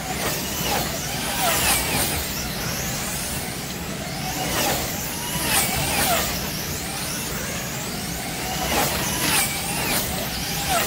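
Wing slot cars racing on a large multi-lane track: the high whine of their small electric motors rises and falls as cars sweep past, swelling again and again as the pack comes by.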